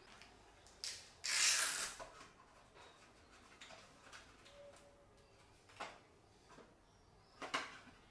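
Wooden parts of a homemade folding camping table being handled: a short knock, then a rubbing scrape of wood about a second and a half in, the loudest sound here, and two more wooden knocks later as the dowel legs are set into their corner blocks.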